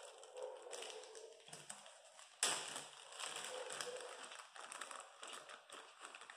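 Thin plastic bag crinkling and rustling as it is handled, in a run of irregular crackles, with one sharp, louder crackle about two and a half seconds in.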